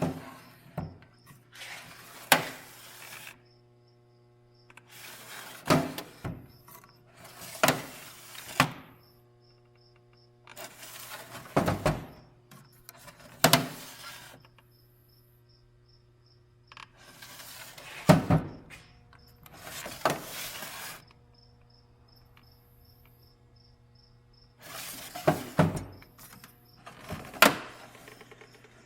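Steel toolbox drawers being slid and handled: about a dozen short bursts of metal scraping, each ending in a clunk. Between them are a steady hum and a faint, evenly repeating high chirp.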